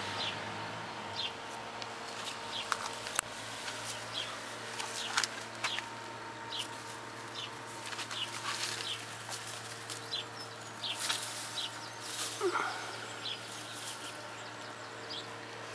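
Short, high bird chirps now and then over a steady low hum, with light rustling and a short falling call about twelve seconds in.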